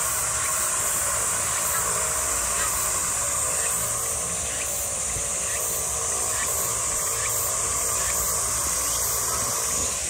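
Steady high-pitched insect chorus, with a second, higher chirping pulsing about twice a second above it.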